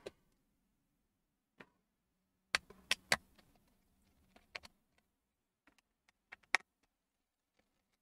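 Scattered clicks and light taps of a laptop hard drive and its tray being worked loose and lifted out of the drive bay. There is a cluster of sharp clicks about two and a half to three seconds in, and another sharp one near six and a half seconds.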